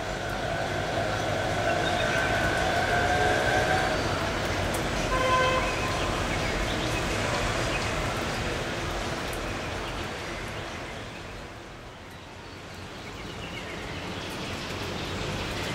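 Steady wash of heavy rain and wet traffic noise that swells and eases, quietest about twelve seconds in. A wavering horn tone is held over the first four seconds, and a short horn toot comes about five seconds in.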